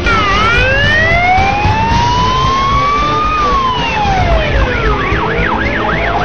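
Police sirens: a slow wail rising over about three seconds and falling back, joined about four seconds in by a fast yelp sweeping up and down several times a second.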